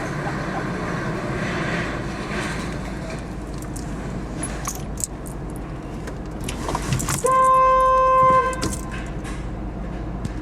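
A car horn gives one steady beep of about a second and a half, a bit past two-thirds of the way in: a warning to another car backing toward this one. Under it the car runs with a low steady rumble.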